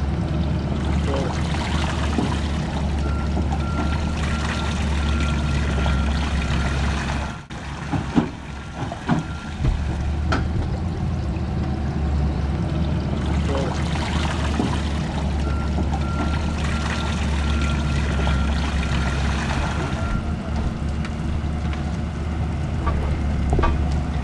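A steady low engine rumble as the burned boat is hauled up the ramp on its trailer, with water pouring and trickling off the hull. A few knocks sound about eight to ten seconds in.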